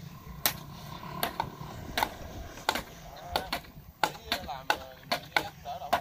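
Irregular sharp knocks and chops, roughly two a second, from hand tools as workers pound wooden stakes into the bank, with quiet voices in between.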